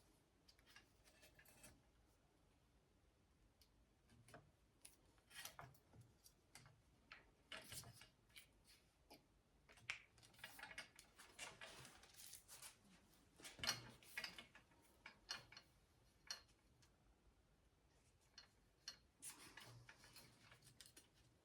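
Faint, scattered clicks and rustles of zip ties being fed and pulled tight around a power cord, with a few sharper snaps in the middle.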